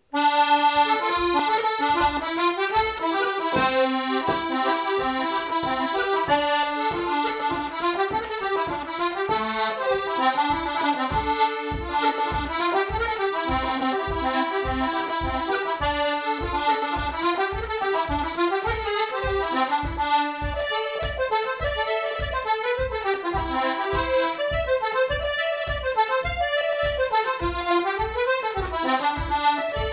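Paolo Soprani Pepperpot two-row button accordion playing a fast traditional reel: a quick treble melody over an even bass-and-chord beat from the left hand, starting right at the outset.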